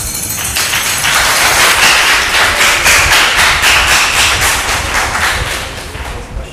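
Applause from a small audience of many hands clapping, building about a second in and dying away near the end.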